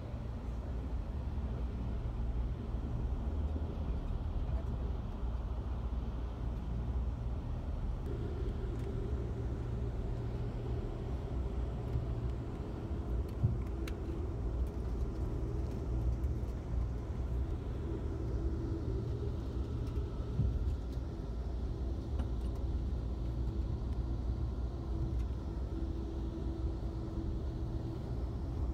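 Steady low rumble of a moving passenger train heard from inside the car: wheels running on the rails, with a faint steady hum that comes in about eight seconds in and stays.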